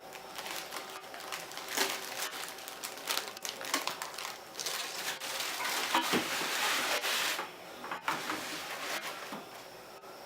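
Packaging being handled and unwrapped: rustling and crinkling with scattered clicks and knocks, thickest for about three seconds in the middle.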